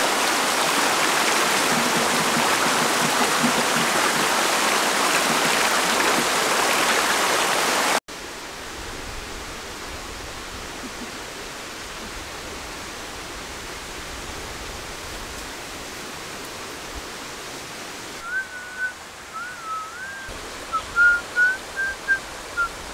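Steady rushing of a flowing stream, cutting off abruptly about eight seconds in to a much quieter outdoor hiss. Near the end a boy whistles a string of short, wavering notes.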